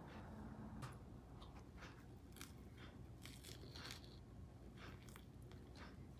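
Faint eating sounds: scattered small bites, crunches and chewing on a fresh rice-paper roll filled with lettuce.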